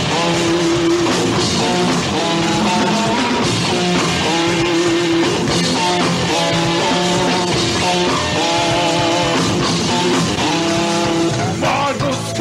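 Rock band playing live: two guitars repeating an instrumental riff over bass and drum kit.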